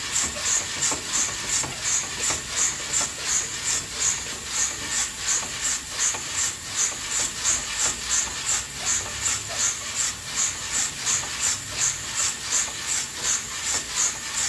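Old-style coffee roaster working over a wood stove, with the beans inside swishing and hissing in an even rhythm of about three pulses a second.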